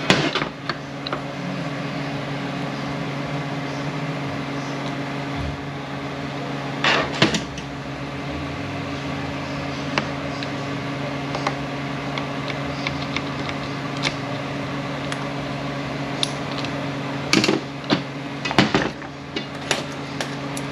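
Steel automatic-transmission clutch parts clink and knock now and then as they are handled and set down on a steel workbench, with a cluster of clinks near the end. A steady low hum runs underneath.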